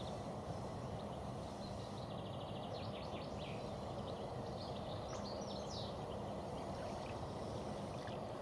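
Steady rushing background noise with small songbirds chirping and trilling over it, about two seconds in and again about five seconds in.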